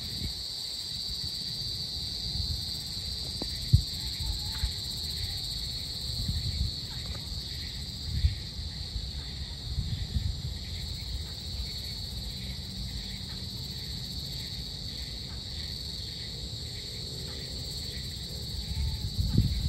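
Steady high-pitched evening insect chorus, a continuous shrill trill, over a low uneven rumble, with one sharp click about four seconds in.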